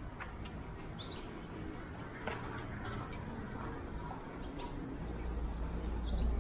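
Outdoor street ambience with small birds chirping in short, scattered calls over a steady background hiss. There is a sharp click about two seconds in, and a low rumble builds near the end.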